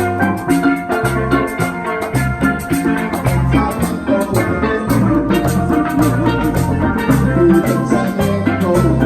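Steel band playing a lively Christian praise tune: ringing steelpan melody and chords over a repeating bass line and a drum kit.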